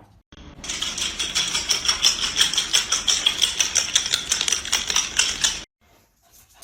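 Rapid, dense clicking and tapping, many clicks a second, that cuts off abruptly near the end.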